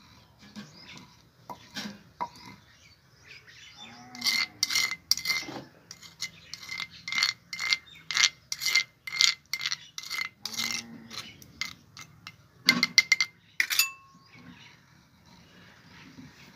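Wooden pestle pounding and grinding wet chutney paste in a stone mortar, with a spoon scraping the paste: a run of short sharp strokes about two a second through the middle, and a few more about two seconds later.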